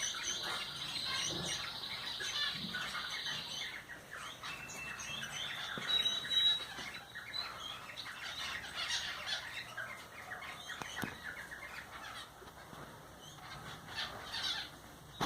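Cockatiels chirping and squawking in short calls while mating, with a steady high trill that stops about four seconds in and a brief whistle a couple of seconds later.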